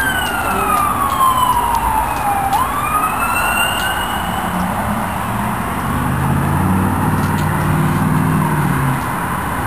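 Emergency vehicle siren wailing, its pitch sliding down for a couple of seconds and then climbing again before it fades about four seconds in; a low steady drone follows.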